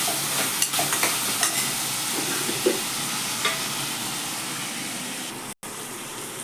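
Chicken pieces frying in oil with masala in a pan, a steady sizzle with occasional clicks and scrapes of stirring. The sound drops out briefly near the end.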